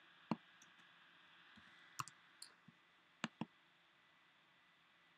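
A handful of sharp computer keyboard and mouse clicks, scattered over the first three and a half seconds, over faint hiss: keys tapped to fix a typo in a search box, then the Search button clicked.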